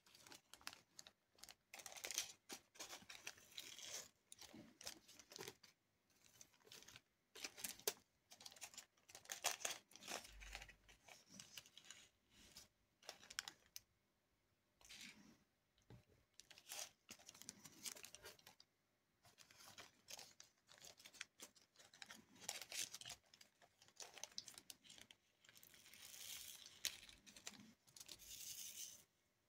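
Small resin diamond-painting drills clicking and rustling in a plastic tray and against a drill pen as they are scooped up and pressed onto the sticky canvas. The sound is faint and comes in bursts of a second or two with short pauses between.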